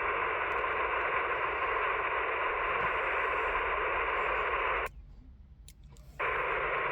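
Hiss of FM receiver static from the Yaesu FTX-1F transceiver's speaker. It cuts off abruptly about five seconds in, as the squelch closes, and comes back about a second later.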